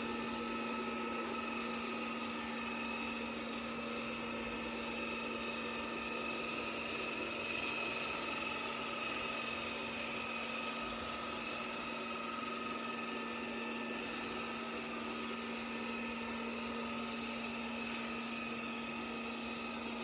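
Robot vacuum cleaner running steadily: an even motor hum with a whirring brush and suction noise, no starts or stops.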